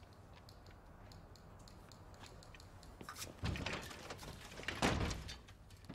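A man coming in through an office door: quiet room tone, then two dull thumps about a second and a half apart.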